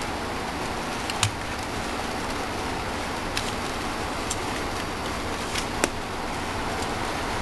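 Small plastic toy parts clicking several times as tiny accessory tools are pressed into place on a plastic Transformers figure, the loudest click about a second in, over a steady hiss.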